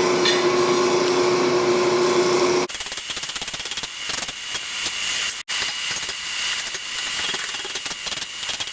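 A steady machine hum with a constant drone that cuts off abruptly after about two and a half seconds, followed by the rapid, high-pitched rattling clatter of a power tool working, with a steady whine running through it.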